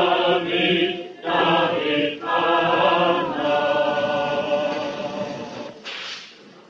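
A group of voices chanting a prayer in unison, in long held notes and phrases about a second long, dying away near the end with a short hiss.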